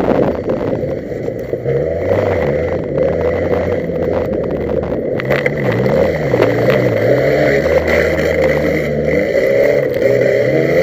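Race car engine, heard from a camera mounted on the car's front, revving up and down repeatedly as the car is driven and turned on a loose dirt track, over a steady hiss of wind and tyres. A few sharp ticks sound about halfway through.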